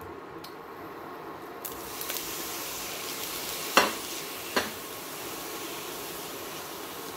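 Sliced fresh tomatoes sizzling in a hot frying pan as they are stirred with a wooden spatula. The sizzle swells up about two seconds in, and the spatula knocks sharply against the pan twice near the middle.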